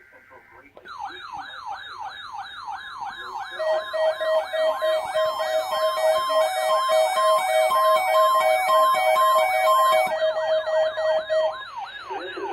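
Electronic alert siren wailing in rapid rising-and-falling sweeps, about three a second, starting just under a second in. From about three seconds in it is joined by a steady, interrupted beeping alarm tone that stops shortly before the end. It is the warning alarm of a routine weekly emergency alert test.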